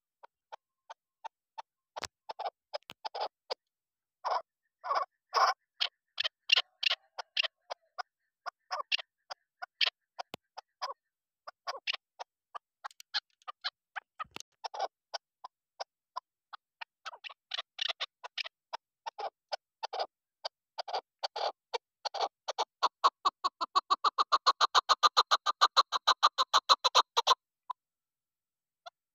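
Chukar partridge hen calling: scattered short clucking notes, then about two-thirds of the way in a fast, louder run of notes, about eight a second, that stops abruptly.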